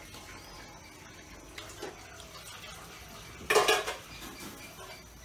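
A metal spoon clinking against ceramic bowls and a plate as curry is served. It gives a few soft clinks, then one loud, brief clatter about three and a half seconds in.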